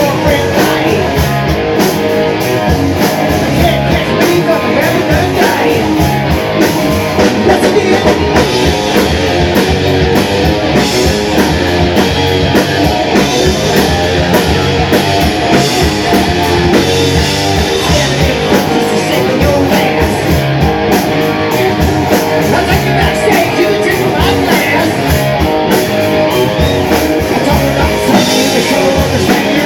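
Rock band playing loudly, with electric guitar and a drum kit keeping a steady beat.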